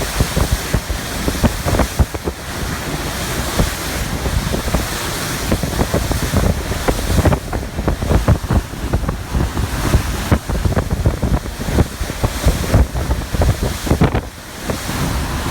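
Strong wind buffeting the microphone over the rush of water as a boat runs through a wind-driven chop, with frequent short thumps.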